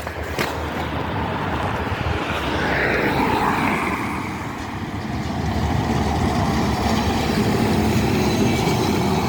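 A bus passing close by, its engine running with road and tyre noise; the noise builds over the first three seconds, eases briefly, then swells again.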